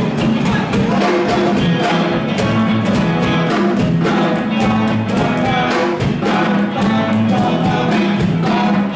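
Live oldies rock and roll band playing, with upright bass, electric guitars and a drum kit keeping a steady beat.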